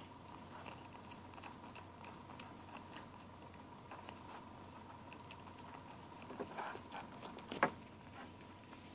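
Seven-week-old kitten eating wet food out of a small can: faint, scattered chewing and lapping clicks, with one sharper click about three-quarters of the way through.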